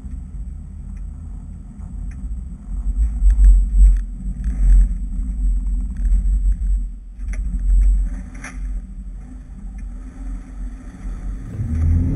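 BMW X1 xDrive18d, a four-cylinder diesel SUV, driving off-road over snow, heard from a camera on the outside of the car: a low rumble from engine and tyres that swells and fades, with scattered clicks and knocks.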